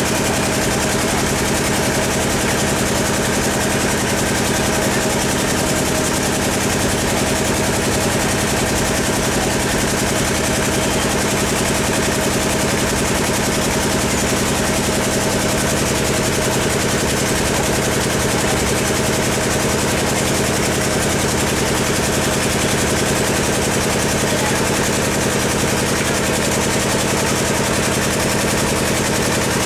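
A steady engine-like hum made of several fixed tones over a constant rushing noise, unchanging in level or pitch throughout.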